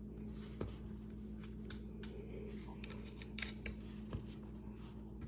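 Faint scattered clicks and light scrapes of small metal parts and hand tools being handled while fitting a rear sight on a Glock 48 pistol slide, over a steady low hum.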